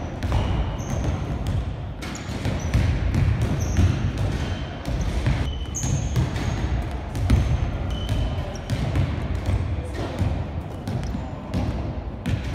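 A size-5 basketball being dribbled on a wooden gym floor: a run of repeated bounces all through, with short high squeaks now and then from shoes on the floor.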